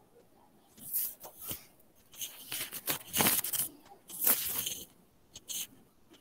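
Irregular bursts of rustling and scraping handling noise close to the microphone, several short ones with a longer run in the middle.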